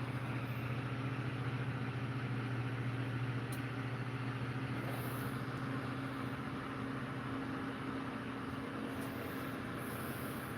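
Steady low hum of a motor or appliance in the room, unchanging throughout, with one faint click a few seconds in.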